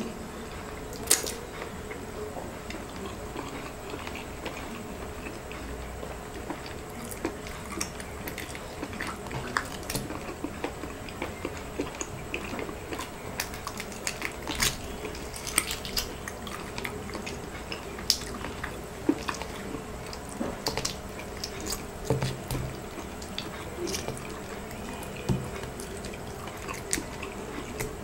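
Close-up eating sounds of sauce-coated balut and rice eaten by hand: wet chewing, lip smacks and small sticky clicks at irregular intervals. A faint steady hum runs underneath.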